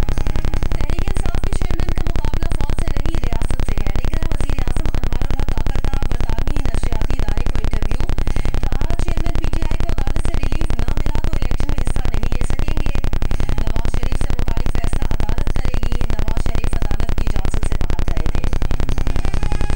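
A loud, steady buzzing noise with a deep hum at the bottom, with faint muffled sound underneath.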